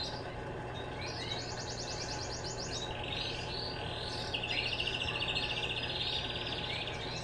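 Birds singing nearby in fast, evenly pulsed high trills, several in a row, the longest running for about two seconds past the middle. A steady low hum runs beneath them.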